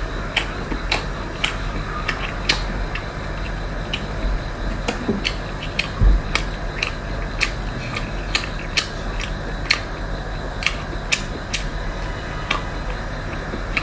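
A string of irregular sharp clicks and ticks, about two a second, with one heavier knock about six seconds in, over a steady low hum.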